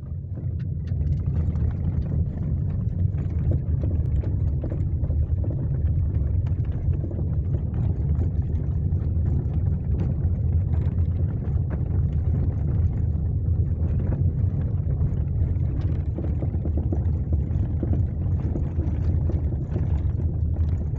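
Inside a Chevrolet Onix's cabin on a rough cobblestone street: steady low road and tyre rumble, with light, irregular knocks from the rear suspension. The knocking is a loose rear shock absorber bump stop banging against its boot, which the owner traces it to.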